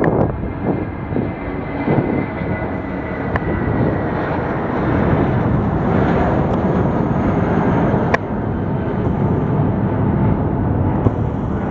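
Airliner's engines running with a steady, noisy sound and a faint whine that slides slightly lower over the first few seconds; a sharp click about eight seconds in.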